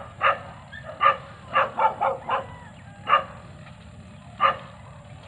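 A dog barking, about eight short sharp barks at uneven intervals.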